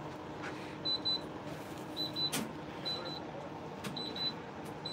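Cash register beeping as it is closed out: short high electronic beeps in quick pairs, about once a second, with a few sharp clicks over a steady shop hum.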